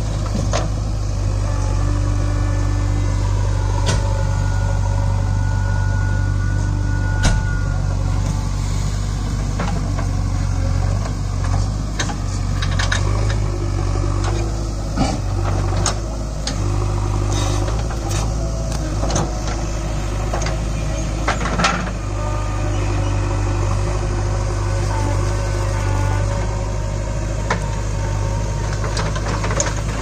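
JCB 3DX Super backhoe loader's diesel engine running steadily while the backhoe digs out a tree stump, with a changing hydraulic whine and scattered sharp knocks and clanks from the bucket and boom.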